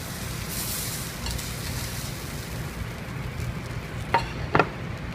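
Restaurant kitchen noise while a dish is plated: a steady low hum under a sizzling hiss, then two sharp clinks about four seconds in, close together, of a utensil against the plate.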